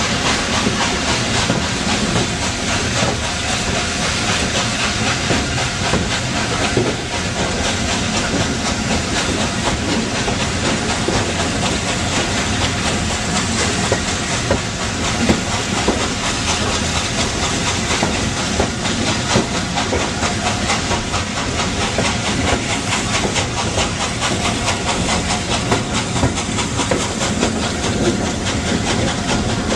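Three-cylinder Peppercorn A1 steam locomotive 60163 Tornado working hard at the head of its train, its exhaust beat heard from a coach window, mixed with the steady rumble and clickety-clack of the carriage wheels on the rails.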